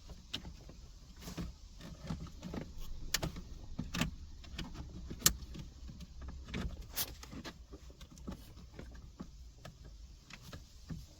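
Hard plastic interior trim knocking and clicking as the car's centre console piece with the cigarette lighter is handled and pushed back into place: irregular sharp clicks, the loudest about five and seven seconds in, over a low steady hum.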